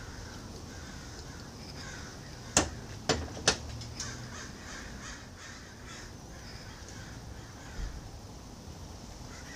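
Three sharp metal clinks a couple of seconds in, as an adjustable wrench works the carriage lock bolt on the cast-iron saddle of a South Bend lathe. Birds call in the background.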